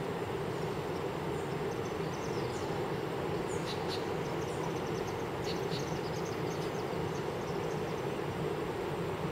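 Steady distant roar of Iguazu Falls, an even rushing rumble, with scattered short high chirps over it.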